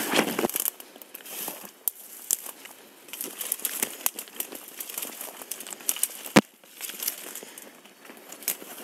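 Footsteps crunching through dry leaves and brush, with twigs and branches rustling, crackling and snapping irregularly; one sharp, loud snap about six and a half seconds in.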